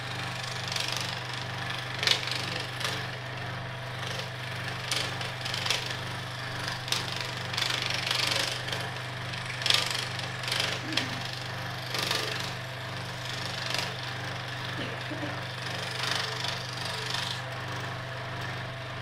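Electric scroll saw running with a steady motor hum, its thin reciprocating blade cutting through olive wood with an uneven rasp that comes and goes as the piece is fed and turned.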